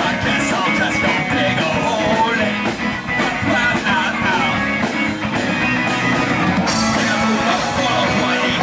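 Live punk rock band playing loud, steady rock with guitar.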